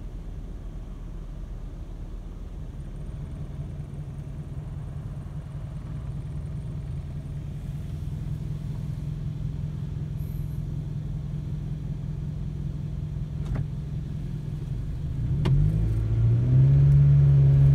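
Car engine and road rumble heard from inside the cabin, steady at first, then rising in pitch and getting louder near the end as the car pulls away and accelerates. A couple of light knocks come shortly before the engine note rises.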